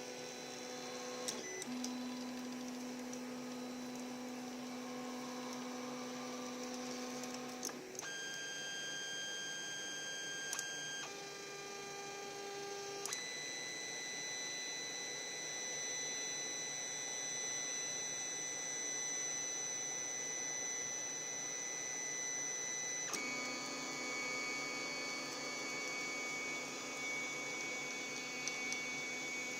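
3D printer's stepper motors whining at steady pitches that jump to a new pitch every few seconds as the moves change, with a few short clicks.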